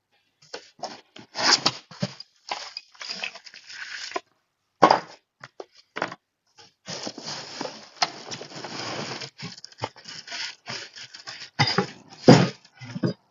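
Packaging of a new belt sander being unpacked by hand: irregular rustling and crinkling, with a few sharp knocks, the loudest near the end.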